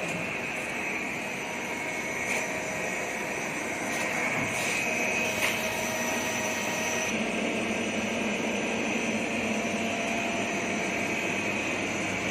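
CNC lathe running: a steady machine whine and hum, with a few short clicks near the middle and a change in tone about seven seconds in.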